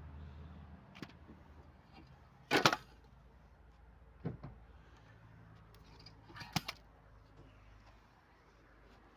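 A few short, sharp knocks, the loudest a double knock about two and a half seconds in, with others about a second in, past four seconds and past six and a half seconds; a low steady hum stops within the first second.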